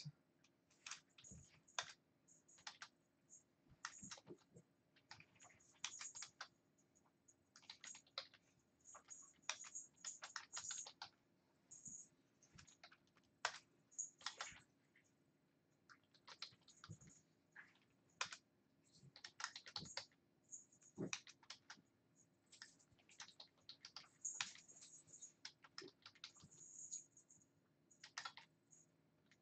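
Faint, irregular clicking of typing on a computer keyboard, in quick runs of keystrokes with short pauses between.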